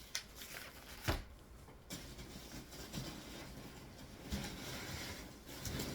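Handling of packaging and mailing envelopes: rustling and shuffling, with a sharp knock about a second in and a longer stretch of rustling near the end.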